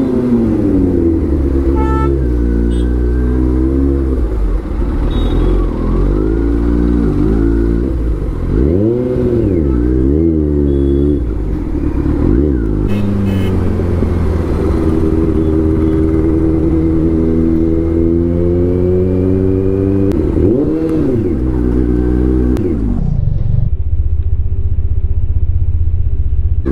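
Kawasaki Z900's inline-four engine running under way, its pitch rising and falling with the throttle. It revs up sharply and drops back a few times, twice about a third of the way in and once more late on, then settles to a lower, steady note near the end.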